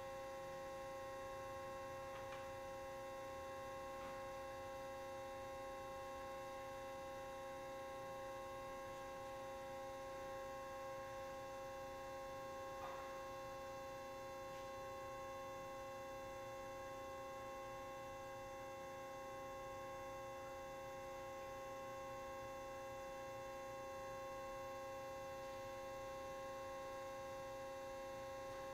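Steady machine hum made of several even, high tones that do not change, with a few faint ticks.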